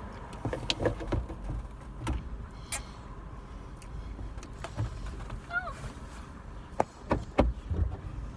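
Handling noises as hair is gathered and put up into a bun: scattered clicks, knocks and rustles over a low steady rumble.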